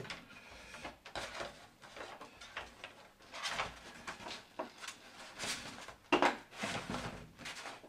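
Hands handling a 3D-printed model aircraft wing on a workbench: irregular rubbing, rustling and light knocks, with a sharper knock about six seconds in.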